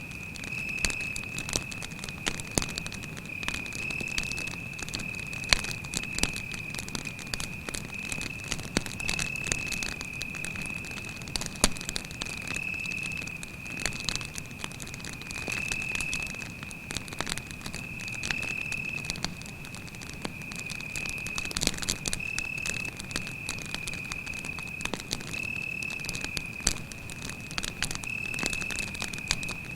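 Campfire crackling with frequent irregular snaps and pops, over the steady high trill of a cricket.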